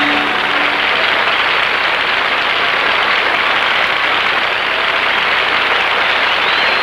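Studio audience applauding loudly and steadily at the end of a song, with the band's last held note dying away in the first second and a whistle near the end.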